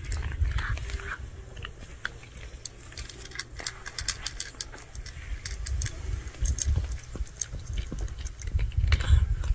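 A cat crunching dry kibble from a ceramic bowl: quick irregular crunches and clicks, over a low steady rumble.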